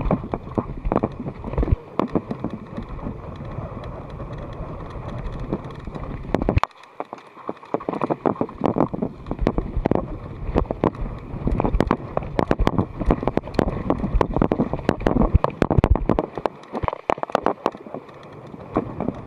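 Mountain bike rolling fast over a dirt trail, with a dense, irregular rattle and knocking from the bike over the bumps. Wind rumbles on the microphone, dropping away briefly a few times.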